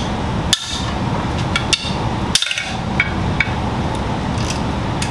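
Hand hammer striking a ratchet handle, a series of sharp metallic knocks, to shock loose tight clutch pressure-plate bolts on an engine whose flywheel cannot be locked.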